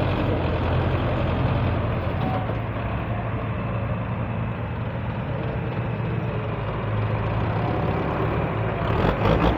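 Diesel engine of a Belarus 510 tractor running steadily close by, a low, even sound.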